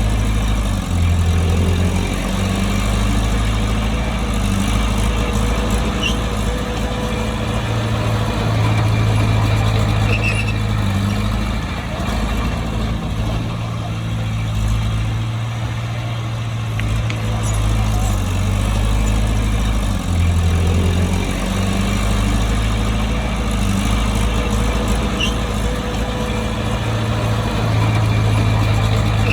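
Bulldozer's diesel engine running steadily under working load, its pitch and loudness stepping up and down as the load changes.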